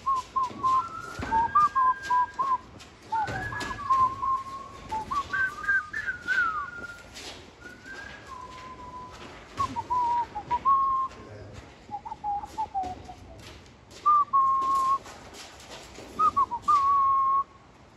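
A person whistling a tune in phrases of held notes and short slides, with scattered thuds and clicks, two heavier thuds in the first few seconds.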